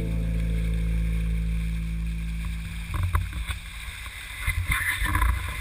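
The last notes of the music die away, then water laps and sloshes against a sailboat's hull, with small irregular knocks.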